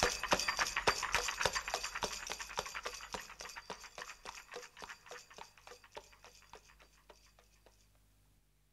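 Clip-clop hoofbeats of the coachman's trotting horse in an even rhythm of about five a second, fading out gradually until they stop near the end.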